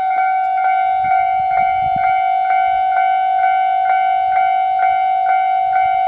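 Japanese railway level-crossing warning bell ringing, an electronic clang struck about twice a second over a steady ringing tone, sounding while the barriers are down for an approaching train.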